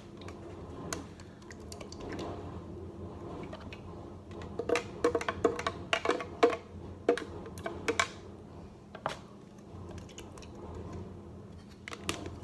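Hard plastic lemon juicer being handled, its reamer top and jar clicking and clacking, with a quick run of sharp clacks in the middle and a few single clicks after.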